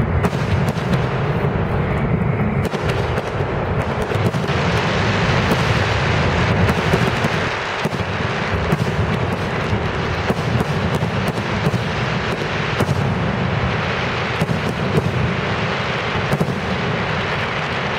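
Grucci aerial fireworks display with shells bursting in quick succession: a continuous barrage of overlapping booms and many sharp reports.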